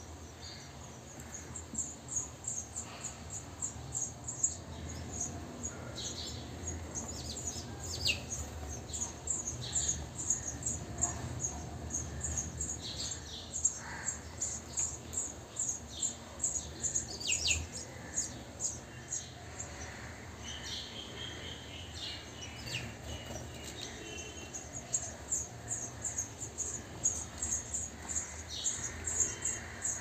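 House sparrow nestlings giving a fast, continuous series of thin, very high begging cheeps as an adult comes to the nest hole with food, with adult house sparrows chirping over them now and then.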